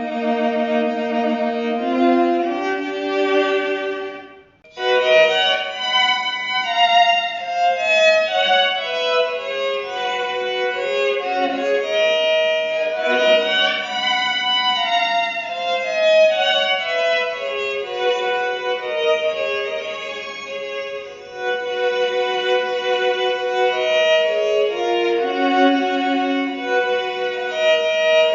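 Electric violin played through a harmonizer effects pedal: single bowed notes come out with a second parallel harmony voice, like double stops. The playing breaks off briefly about four and a half seconds in, then a new passage starts.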